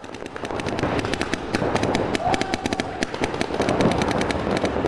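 Many paintball markers firing at once, a dense, irregular rattle of sharp pops that fades in over the first second and then keeps up rapidly.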